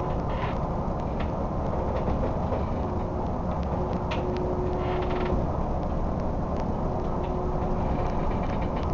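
Steady low rumble on board a crab boat in a 70–80 knot storm, with frequent creaks and rattles and a faint on-and-off hum.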